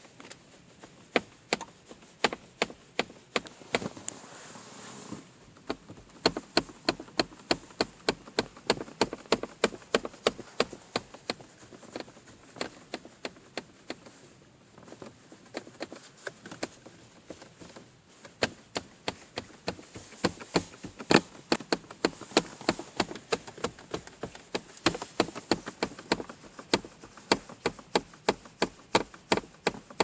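Knocking and rattling inside the dashboard of a 2012 Kia Ceed, near the windshield air duct: quick sharp taps, about two or three a second, with a couple of short gaps, over a low steady hum that starts about five seconds in. It is an unwanted knock in the dash trim that has only recently appeared.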